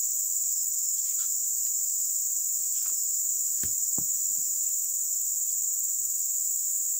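Steady, unbroken high-pitched drone of a tropical insect chorus, with a couple of faint knocks about halfway through.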